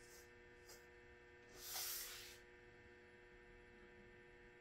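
Near silence: a steady low electrical hum in the shop's room tone, with a brief soft hiss about two seconds in.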